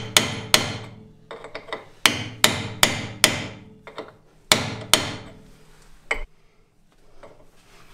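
Hammer blows on the steel brake backing plate of a VW Beetle rear drum brake, knocking at the rusted, seized brake adjustment screws to free them. There are about ten sharp metallic strikes in quick groups, each ringing briefly, and they stop about six seconds in.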